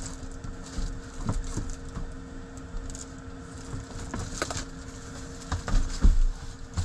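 Rustling and soft knocks of padded insulated window covers being handled and pressed into place over van windows, over the steady hum of a running diesel air heater.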